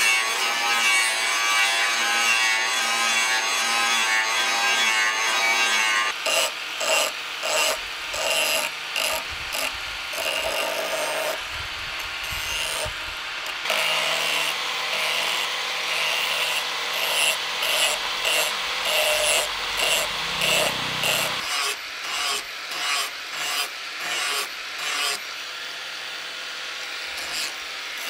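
Electric angle grinder with its disc against a steel machete blade, grinding and shaping it. It runs as a steady whine at first, then in short repeated passes as the disc is pressed on and eased off the metal.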